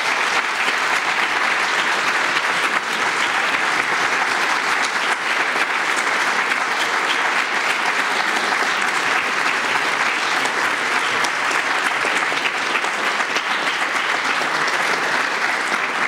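Audience applauding steadily: many hands clapping at an even level.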